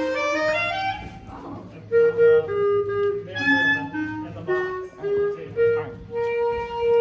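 Clarinets warming up: a quick rising scale, then separate held notes at different pitches, some overlapping, ending on a long steady note.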